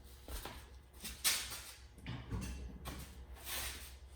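Quiet, scattered handling sounds of a screwdriver working at a cut-open spin-on oil filter: soft scrapes and rattles, with one sharper click about a second in.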